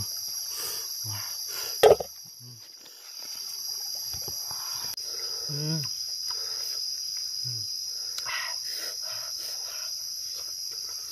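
Steady high-pitched drone of jungle insects. Over it come scattered short eating noises: soft mouth clicks and brief low hums. There is one sharp knock about two seconds in.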